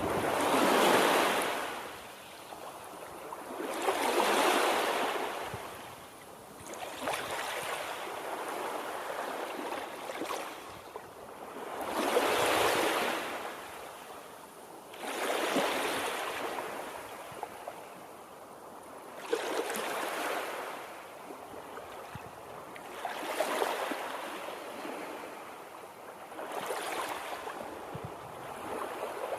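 Waves breaking and washing in on a shore, one swell of surf about every three to four seconds.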